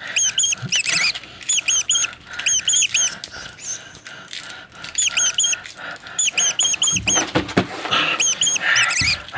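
Small animal squeaking: high chirping squeaks in quick runs of four or five, repeating every second or so, with a brief scuffle about seven seconds in.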